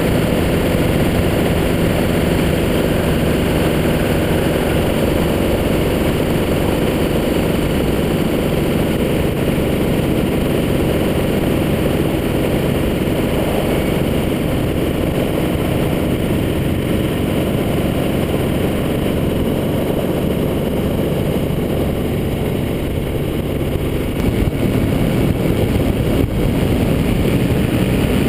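Rotax 503 two-cylinder two-stroke engine of a Quicksilver GT400 ultralight running steadily in flight, with air rushing past. The loudness dips briefly near the end and then comes back up.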